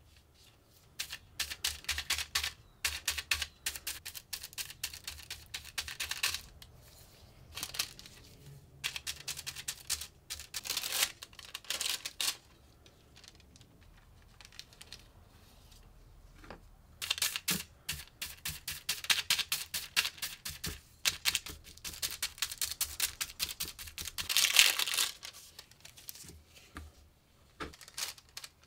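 Rapid dry ticking and paper rustling as transfer gold leaf on its paper backing is pressed and dabbed with brushes onto a metal plate and the backing is peeled away. The sound comes in bursts of a few seconds with quieter gaps between them.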